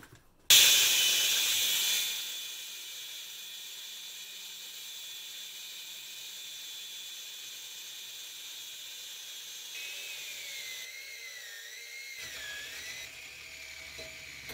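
Angle grinder with a thin cut-off wheel cutting metal. It starts suddenly about half a second in and is loudest for the first second or so. It then runs on at a lower, steady level with a high whine that wavers near the end.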